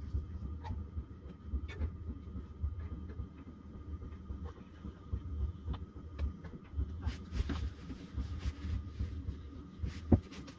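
Ham slices frying in a pan on a propane camp stove over an uneven low rumble, with light clicks of a fork against the pan and one sharp clink about ten seconds in.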